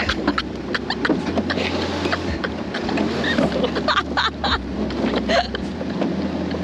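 Riding in the open bed of a Toyota pickup truck on a rough road: the engine runs steadily while the bed rattles and knocks over bumps, with short bursts of laughter.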